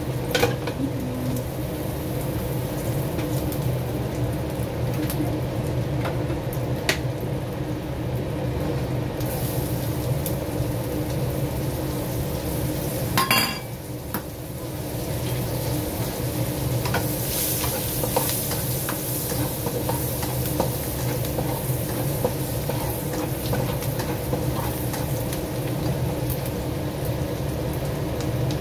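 Chopped garlic sizzling in hot oil in a wok over a gas flame, with a steady low hum underneath. The sizzle grows brighter in the second half, and there is one brief knock near the middle.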